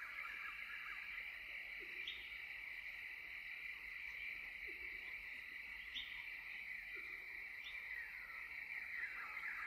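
Animal-call ambience: a dense, steady chorus of short chirping calls, with a lower call recurring every two to three seconds.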